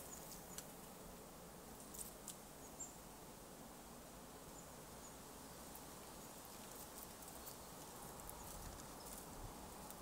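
Near silence: faint outdoor ambience with a few faint clicks and short high chirps in the first half.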